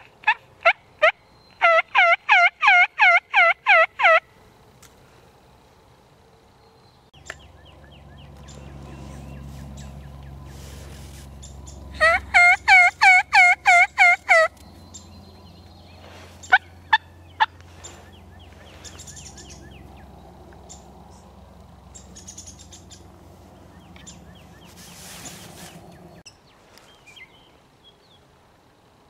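Turkey yelping: two loud runs of about ten quick, evenly spaced yelps each, one at the start and one about twelve seconds in, with a few single yelps soon after. A low rumble runs through the middle stretch.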